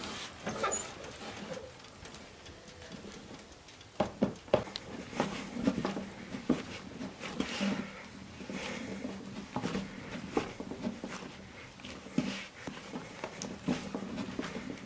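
Dough being kneaded by hand on a wooden table: irregular soft thumps and knocks as the dough is pressed and pushed against the wood, starting a few seconds in.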